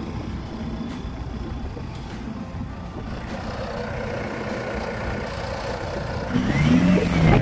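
4x4 vehicle engines running with a steady low rumble. About six seconds in, a louder engine comes up, revving.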